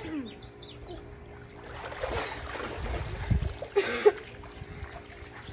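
Pool water splashing and streaming as a person wades to the edge and climbs out, building from about a second and a half in, with a few sharp knocks close by near the end.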